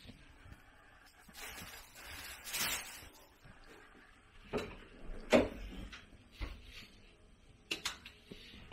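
A lever handle turned and the latch of a bathroom door clicking as the door is opened, with a few knocks and one louder clunk a little after the middle, preceded by a rustle.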